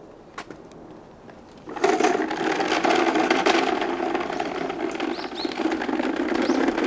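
Plastic toy dump truck pulled on a string over rough asphalt, its plastic wheels making a loud, continuous rattle that starts suddenly about two seconds in.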